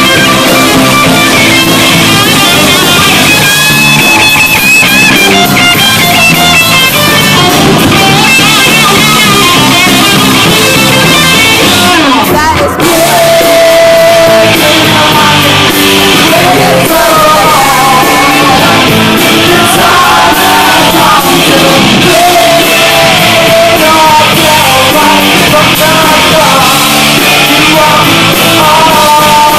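Live rock band playing loud: a lead singer over a Nord Electro 2 keyboard, bass guitar and drums, with a brief drop-out about twelve seconds in.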